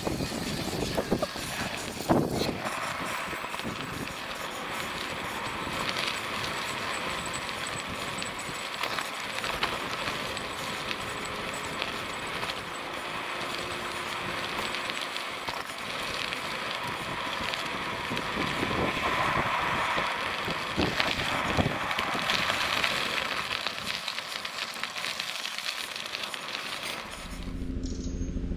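Electric bike riding along a dry dirt track: steady tyre rolling noise, with a few sharp knocks and rattles from the bike over bumps. The riding noise cuts off near the end.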